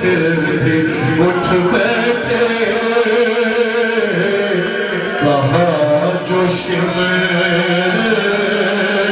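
A man singing an Urdu salam, a Shia devotional elegy, in long held melodic lines.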